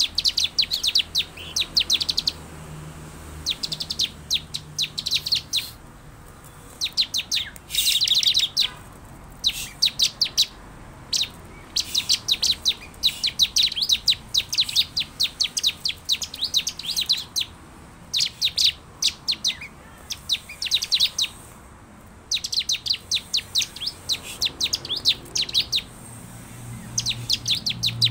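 Bar-winged prinia (ciblek) calling: runs of rapid, sharp high chirps, each lasting a second or two, repeated over and over with short pauses between them.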